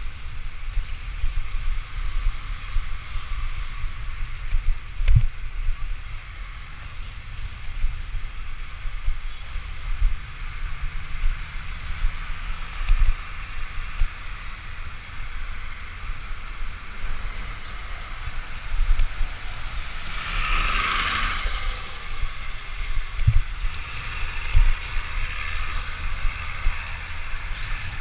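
Wind buffeting the microphone of a camera riding on a moving vehicle, a steady low rumble over a road hiss, with a few sharp knocks from bumps. A louder hiss swells and fades about twenty seconds in.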